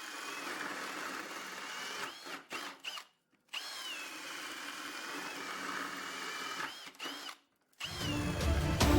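Cordless Milwaukee M18 Fuel Gen 3 brushless hammer drill boring holes with a 1-inch self-feeding spade bit. The motor whines up at the start of each run, then holds a steady pitch while it cuts. Two short breaks cut it off, and background music comes in near the end.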